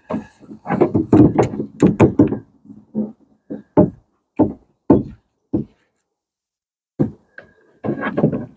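Hard knocks and clacks from a car door lock module and its cable being handled and fitted inside the door. A quick run of knocks comes first, then single knocks about every half second, a short pause, and another run of knocks near the end.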